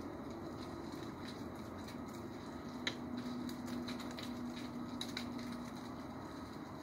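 Steady outdoor background hum, with a low drone through the middle and a few light ticks, the sharpest about three seconds in.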